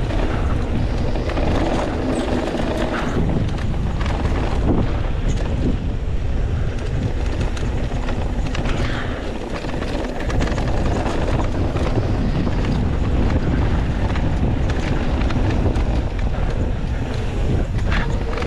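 Wind buffeting the microphone as a mountain bike rides fast down a dusty dirt trail, with a steady rush of tyres on loose dirt and scattered clicks and rattles from the bike over bumps.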